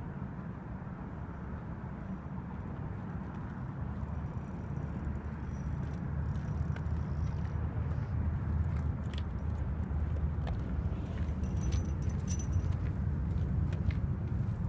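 Low, steady rumble of road traffic passing on the bridge, growing louder in the second half, with scattered light clicks.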